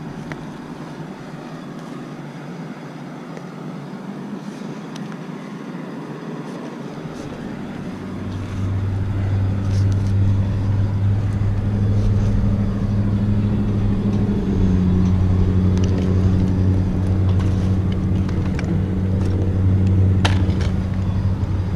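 An engine running steadily with a low hum. About eight seconds in it comes up to a higher, louder steady speed and holds there.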